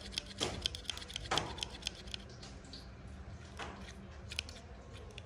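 Wood-handled pruning shears being handled, giving a run of light metallic clicks with a few louder clacks, over a faint low hum.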